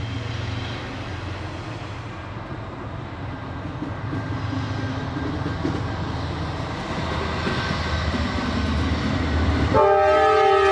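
A train approaching, its low rumble slowly building, then the locomotive's air horn sounding near the end: a loud chord of several steady tones that starts suddenly and holds.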